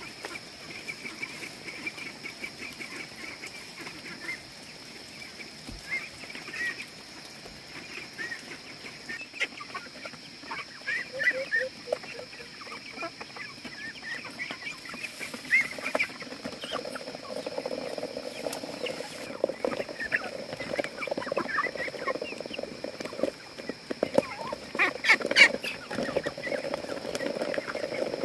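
A crowd of young ducks and chicks calling and peeping as they are fed, the calls getting louder and busier in the second half. A steady high-pitched tone sits behind them.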